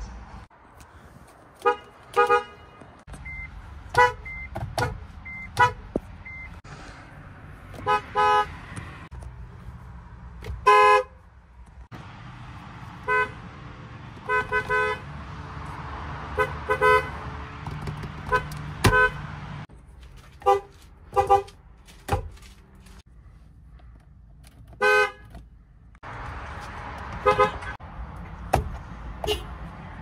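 Car horns of several different cars being tapped in turn: short honks, singly and in quick doubles and triples, about twenty in all, each cut off sharply, over a low background rumble.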